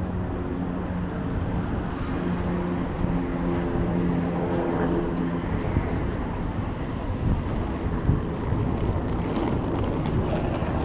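City street traffic: a nearby vehicle's engine hums steadily for about the first six seconds over the rumble of passing traffic. After that the traffic rumble and wind buffeting on the microphone take over.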